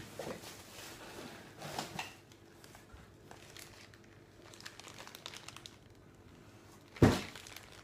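Packaging crinkling and rustling as it is handled, with one sharp knock near the end.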